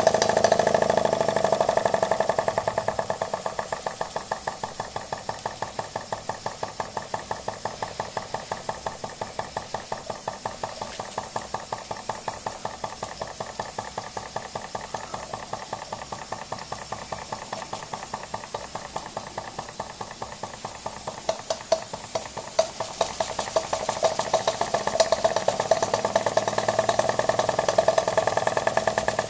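Scratch-built double-acting uniflow-type model steam engine running on live steam with a rapid, even mechanical beat. It grows quieter after the first couple of seconds and louder again in the last third.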